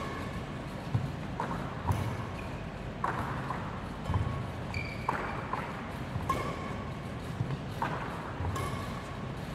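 Badminton racket striking shuttlecocks about once a second in a multi-shuttle feeding drill, with short squeaks of court shoes and thuds of footfalls on a wooden sports floor between the hits.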